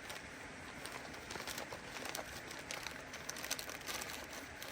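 Plastic MRE wrappers and pouches crinkling and rustling as they are stuffed back into the ration bag, in a run of short irregular crackles.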